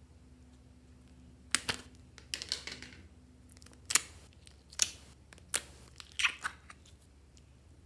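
A thin clear plastic slime tub crackling and clicking as fingers press and flex its sides, in a series of sharp crackles roughly a second apart, some in short clusters.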